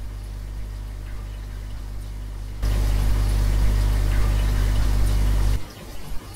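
Hiss and a steady low hum from a ghost-hunting (EVP) audio recording played back at high amplification. It jumps much louder about two and a half seconds in, then near the end drops to a quieter, choppier noise-reduced version.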